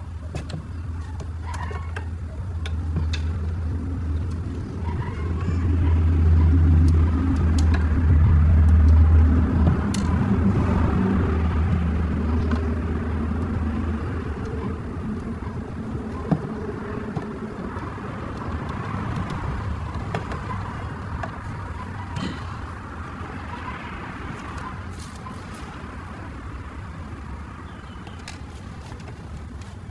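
A motor vehicle's engine: a low hum that grows louder over the first several seconds, peaks, then fades away, with a few faint clicks scattered through.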